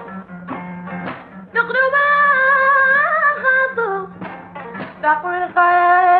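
Background music: a singing voice holds long, wavering notes over a steady low drone, pausing briefly near the start and again around the four-second mark.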